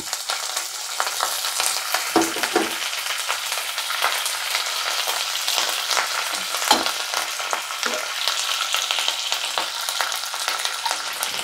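Fresh curry leaves sizzling and crackling in hot coconut oil with mustard seeds, the tempering for aviyal: a steady dense crackle with a few sharper pops.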